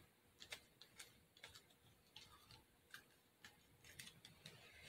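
Near silence, with faint, sharp light clicks at uneven intervals, about two a second.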